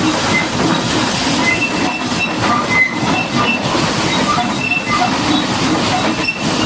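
High-pressure water jet spraying onto a CAT D8R bulldozer, a loud, steady hiss and rush, with short high-pitched chirps scattered through it.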